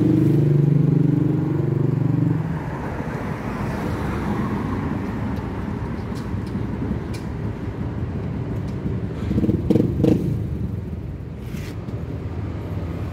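Motor vehicle traffic: an engine runs steadily for the first two seconds or so and then fades out, leaving a steady low traffic rumble with a few short clicks and rustles.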